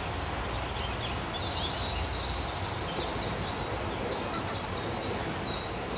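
Woodland songbirds singing, with many short chirps and quick repeated phrases, over a steady low rumble.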